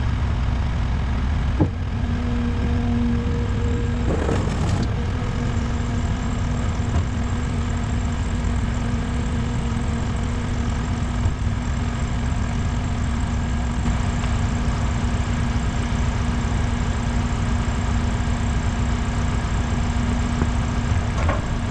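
Heavy diesel engine running steadily with a constant hum, with a single clank about a second and a half in and a brief rattle around four seconds in.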